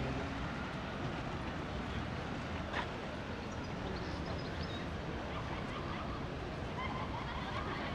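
Steady outdoor city ambience of distant traffic hum, with one sharp click about three seconds in and faint voices of passers-by near the end.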